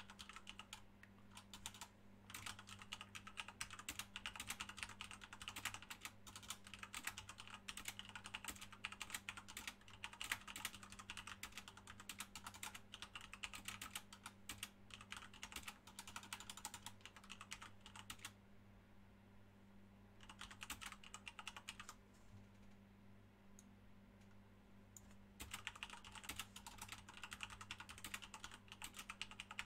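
Typing on a computer keyboard: faint, rapid key clicks in long runs, stopping twice for a couple of seconds past the middle. A low steady electrical hum lies underneath.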